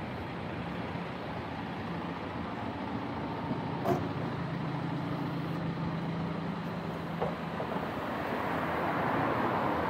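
Street traffic: a vehicle engine running with a steady low hum, and two short sharp clicks, one about four seconds in and one about seven seconds in. The traffic noise swells near the end.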